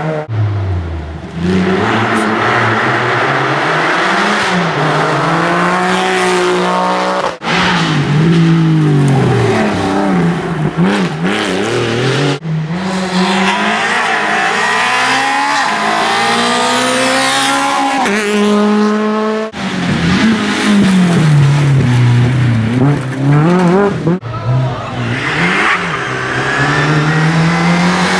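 Rally cars at full throttle passing one after another, among them a Citroën C2 and a classic Mini: engines revving high, dropping back on lift-off and braking, and stepping up through quick gear changes. The sound switches abruptly from one car to the next four times.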